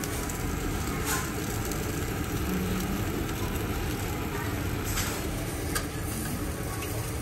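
Meat sizzling and spitting fat on the wire grate of a tabletop yakiniku grill, over a steady low rumble. Metal tongs click against the grate about a second in and again about five seconds in.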